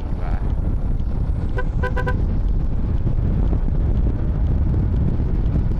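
A vehicle horn gives a quick run of short beeps about a second and a half in, over steady wind and road rumble.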